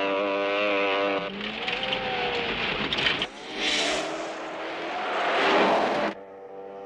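Motorcycle engine running hard at a steady pitch, then the motorcycle passes by with its pitch falling. A police car follows close behind, its engine and tyres on the gravel swelling into a loud rush that cuts off suddenly about six seconds in.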